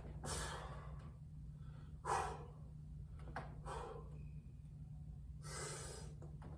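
A man breathing hard with forceful exhales while lifting weights: four breaths, the sharpest about two seconds in, over a steady low hum.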